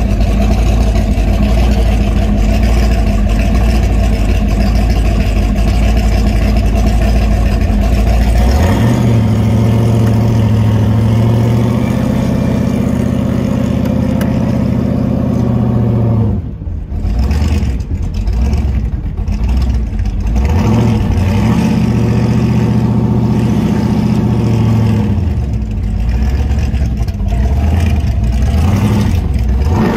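Supercharged V8 of a 1968 Shelby GT500 Mustang, heard from inside the cabin. It idles with a low, steady note, then about a third of the way in the revs step up and hold as the car pulls away. The note dips briefly around the middle, then climbs and holds again.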